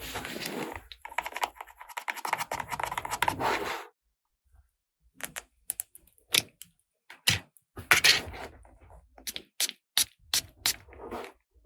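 Handling noise from unboxing a toy makeup playset: about four seconds of dense rustling and crinkling of packaging, then after a short pause a string of sharp clicks and taps from small toy pieces being handled.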